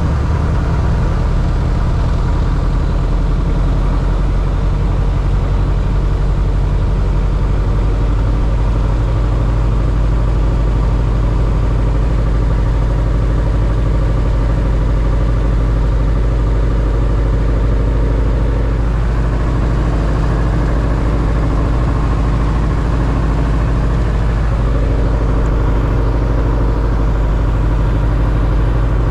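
Single-engine light airplane's engine and propeller droning steadily in flight, heard from inside the cabin; the engine note shifts slightly a few times.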